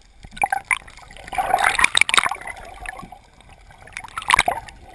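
Water gurgling and splashing around a camera held just under the surface, in irregular bursts: a longer spell of splashing about a second and a half in and another short burst near the end.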